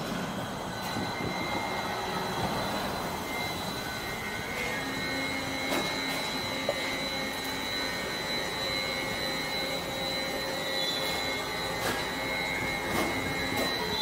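Street traffic noise from passing cars with a steady rush, heard while moving along a city road, with a steady high whine coming in about a second in and a few faint clicks.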